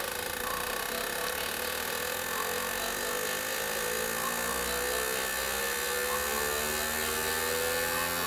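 Fuel injector test bench running a flow test on the cleaned injectors: a steady electric whirring hum, with several tones rising slowly in pitch as the run goes on.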